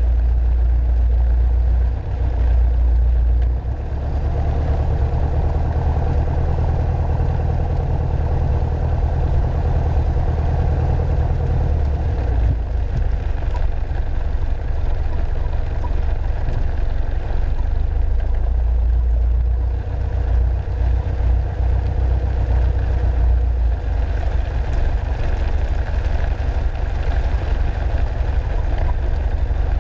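Piper Archer II's four-cylinder Lycoming O-360 engine running at low power, heard from inside the cabin while the plane rolls out and taxis after landing. The deep rumble eases about twelve seconds in.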